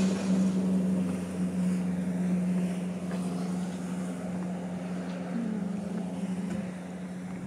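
A motor running with a steady low hum, easing off a little near the end.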